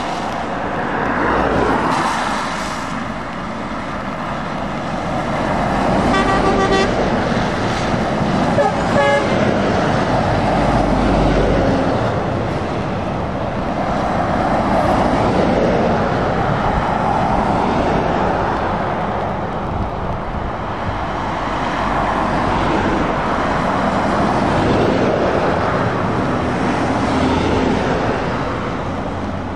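A convoy of heavy lorries driving past one after another on a wet road, the diesel engines and tyre hiss swelling and fading as each truck goes by. A horn toots in short blasts about six seconds in and again about nine seconds in.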